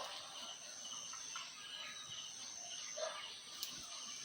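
A steady high-pitched insect drone, likely crickets, with faint short chirps repeating beneath it.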